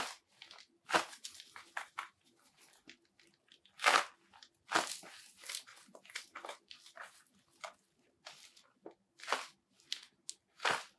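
Nike Vapor Grip 3 goalkeeper gloves scrunching and rubbing as the gloved hands flex open and clench into fists: a string of irregular crunchy scrunches, with a strong one about four seconds in.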